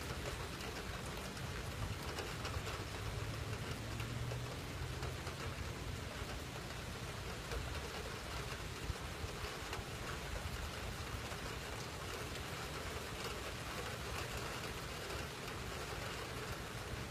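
Heavy rain falling steadily during a thunderstorm.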